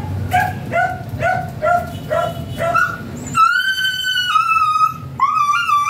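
Husky whining in a rapid run of short, high yelps, about two or three a second, during mating. About three seconds in, the whining gives way to music with long held high notes.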